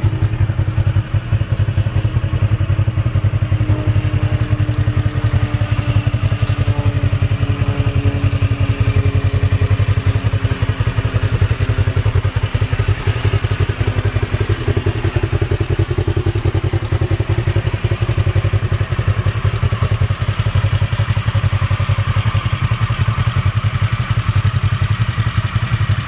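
An engine idling steadily: a loud, even low rumble with faint tones that slowly fall in pitch in the middle.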